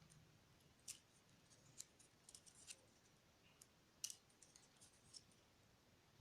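Faint crisp clicks and rustles of small paper slips being folded into quarters and put in place, a few scattered ticks a second, the sharpest about one second and four seconds in.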